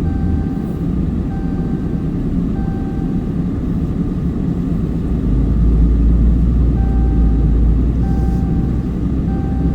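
Pickup truck driving through heavy, wet snow: a steady low rumble of engine and tyres that grows louder about halfway through. A short electronic chime from the dashboard repeats about every second and a quarter, with a break in the middle.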